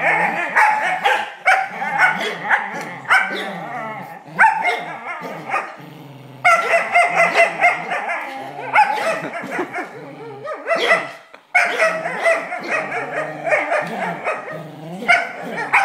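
Smooth collie making play sounds during tug-of-war: near-continuous whining and growling that bends up and down in pitch, broken by short sharp barks and yips.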